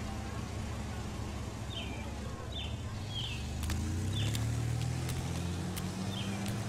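Outdoor street ambience: a motor vehicle's engine hum that swells and then holds through the middle, while a bird chirps repeatedly about once a second. A few light, sharp clicks are scattered through it.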